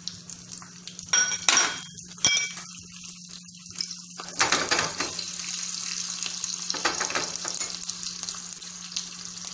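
Tempering of mustard seeds, cumin and green chillies frying in hot oil, sizzling and crackling steadily from about halfway in. A few sharp metallic clinks come in the first couple of seconds.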